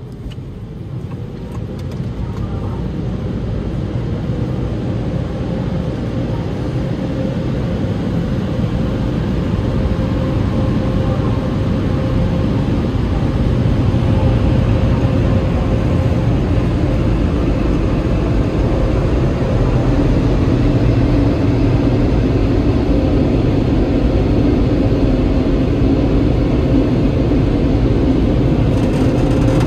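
Tunnel car wash air-dryer blowers running: a loud, steady rush of air with a low hum, growing louder over the first dozen or so seconds and then holding steady.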